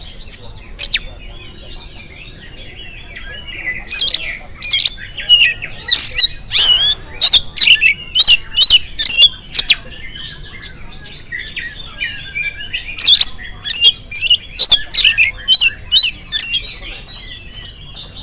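Oriental magpie-robin (kacer) singing full song: runs of loud, sharp, high whistled notes, about two to three a second, with softer twittering warbles in between near the start and in the middle.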